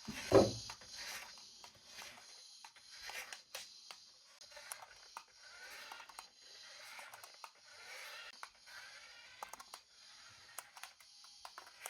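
Toy packaging being handled and opened: irregular rustling and crinkling of plastic and cardboard with scattered clicks, and one loud thump about half a second in.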